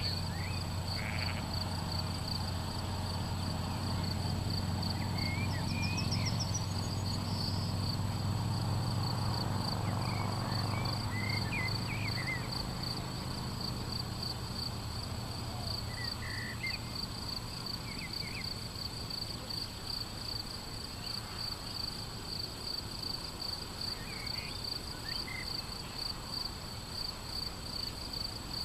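Crickets chirping in a steady, rapid pulsing trill, with short bird chirps here and there. A low rumble underneath fades out about halfway through.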